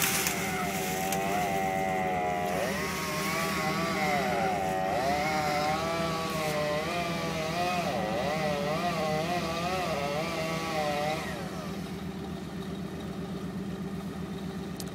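Chainsaw revving up and down over and over, its pitch wavering, then cutting off about eleven seconds in. Underneath, an engine idles steadily throughout.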